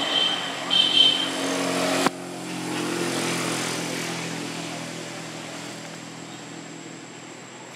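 A motor engine hums steadily and grows fainter over several seconds, with an abrupt break about two seconds in. A high, thin steady tone sounds over it during the first second or so.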